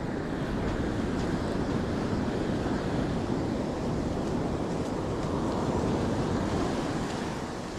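Ocean surf breaking and washing up a sand beach, swelling and easing, with wind on the microphone.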